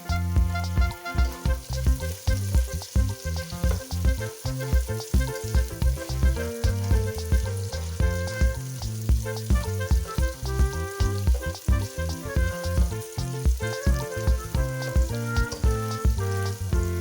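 Oil sizzling in a pan as food fries, under background music with a steady beat and strong bass.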